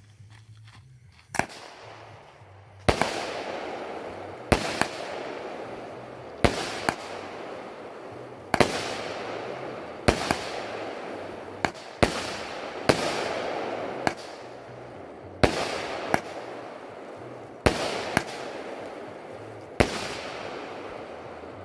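Argento Saphir firework battery firing shot after shot: about fifteen sharp bursting bangs, one every second or two, each followed by a fading hiss and crackle as the stars burn out.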